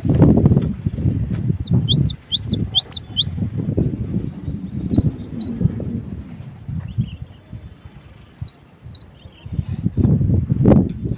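Cinereous tit (gelatik batu) singing in three short bursts of quick, high repeated notes, over a louder low rumbling, fluttering noise.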